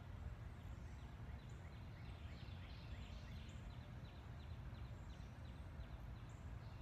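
Quiet outdoor ambience with a steady low rumble, and a bird singing a quick run of short, falling chirps through the middle.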